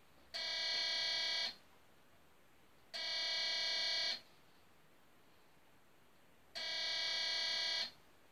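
Walker 18 DIY walk-through metal detector's alarm sounding three times, each a steady buzzing tone a little over a second long, signalling that it has detected a stainless steel knife.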